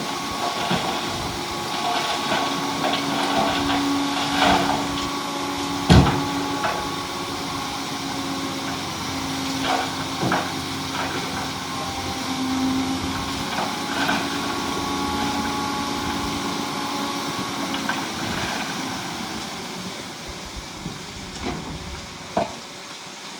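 Heavy diesel earthmoving machinery running steadily, with scattered sharp knocks and clanks, the loudest about six seconds in. The engine sound eases off over the last few seconds.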